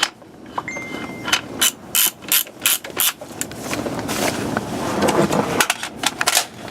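Rapid metallic clicking and ratcheting as a suppressor is fitted onto an AR-15's muzzle. A short steady tone sounds under a second in.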